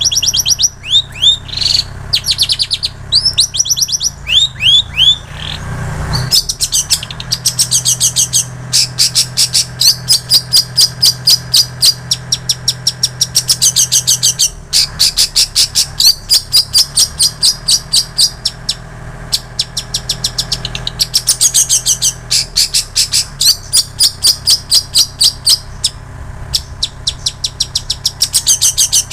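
Long-tailed shrike (cendet) singing mimicked song: a series of falling whistled notes, then from about six seconds in a long, fast run of sharp, evenly repeated high notes with a couple of short breaks, in the style of plain prinia and canary song that the bird has learned.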